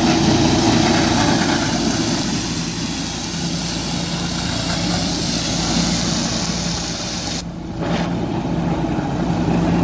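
Tractor engine running steadily under load, driving a PTO straw chopper whose rotor shreds dry rice straw with a dense rushing noise over the engine's hum. About seven and a half seconds in, the high rushing noise cuts out abruptly for a moment and comes back weaker.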